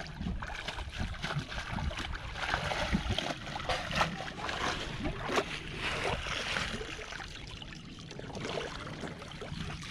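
Water sloshing and splashing, with many scattered short clicks and knocks.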